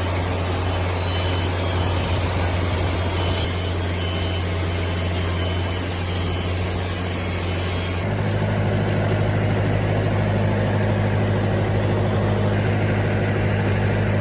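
Engine-driven saw mill running steadily while it cuts through a pecan log. The hum and the hiss above it change suddenly about eight seconds in.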